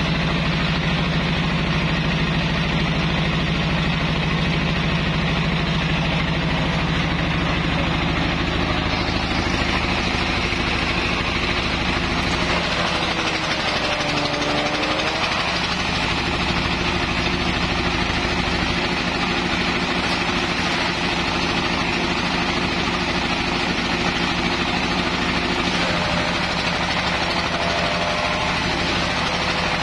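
Belt-driven grass chopper running at speed, powered by a stationary engine, shredding long grass stalks fed in by hand. The steady mechanical din has a brief sag in pitch about halfway through and again near the end.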